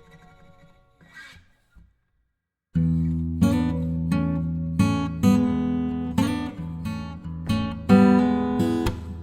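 Background acoustic guitar music: one piece fades out, then after a brief silence, just under three seconds in, a new piece of plucked and strummed guitar starts.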